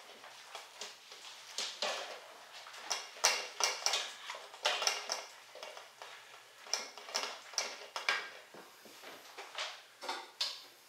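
Wooden spoon stirring shredded potatoes in a stainless steel mixing bowl: irregular scrapes and knocks against the metal, with a little ring from the bowl.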